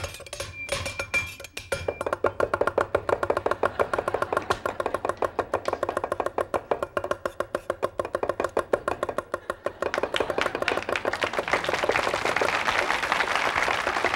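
Two Chinese cleavers chopping fast on a wooden cutting board: a few sparse strokes, then from about two seconds in a rapid, even rattle of blows. Audience applause builds over the chopping near the end.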